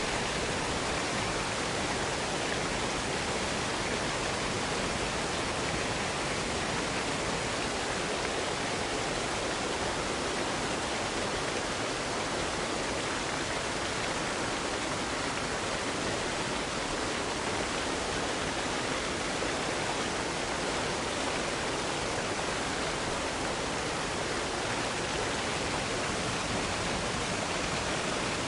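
Waterfall: water pouring and splashing in a steady, even rush with no breaks.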